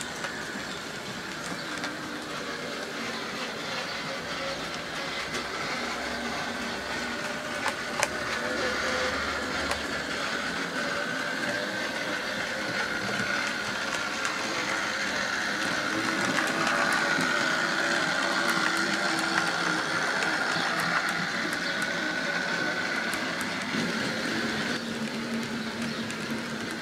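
OO gauge model train locomotives running on the track: a steady electric-motor whine with wheels clicking over the rail joints. It grows louder to a peak about two-thirds of the way through, with one sharper click about eight seconds in.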